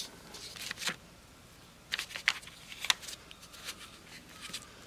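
Thin plastic film crinkling and rustling as hands press clay into a mould beneath it, in scattered faint crackles and clicks.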